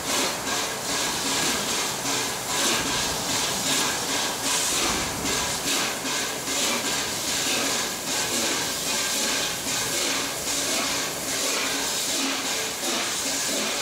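LNER Peppercorn A1 Pacific steam locomotive 60163 Tornado working its train, its three-cylinder exhaust beating in a quick, steady rhythm over a continuous hiss of steam.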